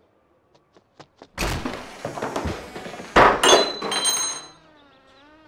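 A heavy wooden door unlatched with a few small clicks, then swung open, ending in a loud bang about three seconds in, followed by a brief high ringing rattle.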